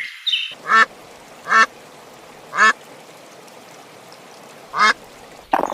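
An animal calling four times, each a short call with several harmonics, the calls spread unevenly over about four seconds.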